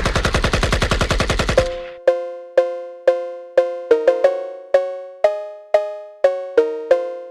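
Background music: a fast drum roll in the first couple of seconds, then a bright, bell-like mallet melody of short decaying notes, about two a second.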